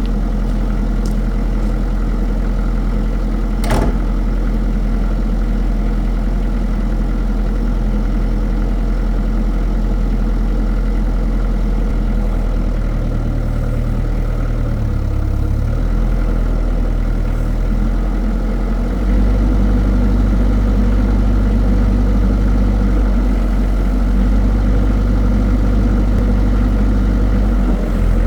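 Excavator's diesel engine idling steadily, with a sharp click about four seconds in. The engine runs a little louder from about two-thirds of the way through.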